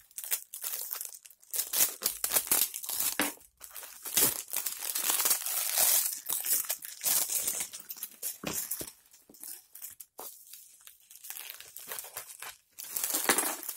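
Plastic bag and bubble wrap crinkling as a parcel is unwrapped by hand. The sound comes in irregular bursts with short pauses.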